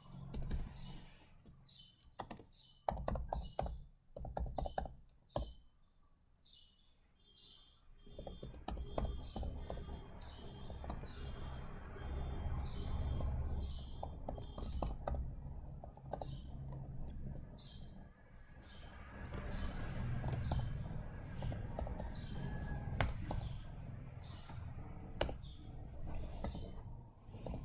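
Computer keyboard typing: irregular keystroke clicks. A repeated high chirping runs behind them, and a low rumble comes in about a third of the way through.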